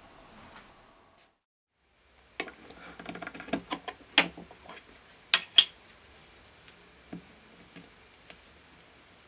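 Metal tin handled on a wooden workbench and its lid worked off: a run of small clicks and tinny clanks, the sharpest about four and five and a half seconds in. After that only faint dabbing of a cloth into the wax paste in the tin.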